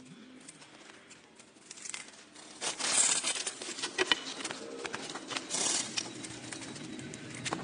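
Rustling, crackling handling noises with scattered sharp clicks, in louder bursts about three seconds in and again about five and a half seconds in.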